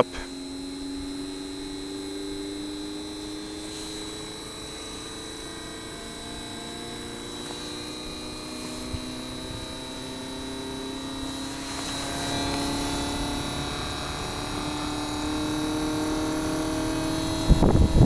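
Fujitsu Halcyon inverter-drive mini-split outdoor unit starting up. Its motor hum slowly rises in pitch as it ramps up speed, over a steady high whine, and grows a little louder about two-thirds of the way in. A brief noisy burst comes near the end.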